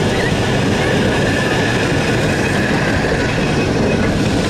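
Open-top heritage tram running along street track, heard from on board: a steady rumble of the steel wheels on the rails, with a faint high wheel squeal through most of it.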